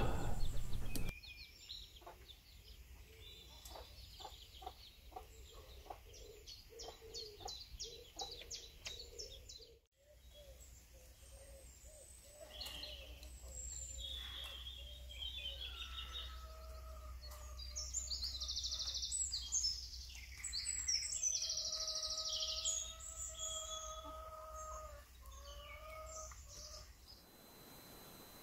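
Chickens clucking and small birds chirping, then, in the second half, a cockerel crowing in several long held calls with more birdsong over the top.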